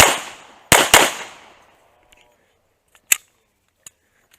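Pistol shots in a match stage: a quick pair of loud shots about a second in, each ringing out, then a fainter single sharp crack about three seconds in.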